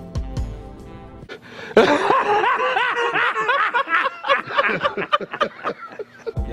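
Background music with a low bass line breaks off about a second in. Then come about four and a half seconds of many overlapping high voices laughing in quick rising-and-falling bursts, louder than the music. The music returns near the end.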